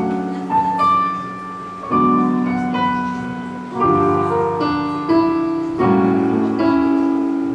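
Piano playing the introduction to a slow blues song: sustained chords struck about every two seconds, with a few single higher notes between them.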